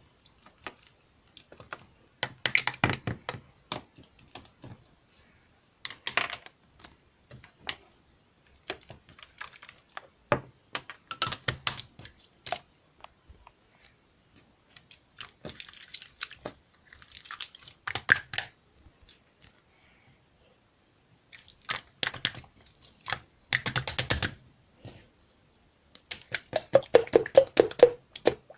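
Hands squeezing, poking and stretching clear slime, giving bursts of sticky crackling clicks, small air-bubble pops and squelches with short pauses between; the last burst near the end is the fullest and wettest.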